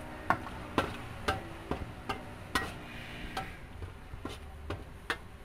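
Metal spatula clanking and scraping against a large metal wok while stir-frying meat: sharp strikes about twice a second, each with a brief metallic ring.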